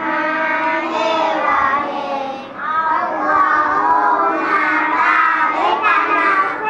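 A group of young children chanting together in a sing-song unison, reciting a prayer before eating with their hands raised.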